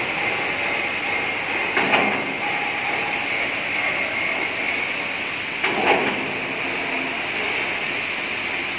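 Steel coil sliding onto the steel mandrel of a hydraulic decoiler, over a steady hiss. There are two louder metal knocks and falling scrapes, about two and six seconds in.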